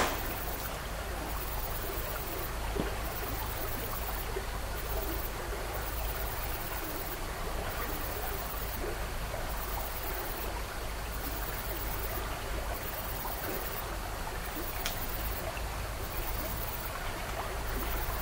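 Steady, even rushing noise like running water, with a low hum underneath. A faint click comes about three seconds in and another about fifteen seconds in.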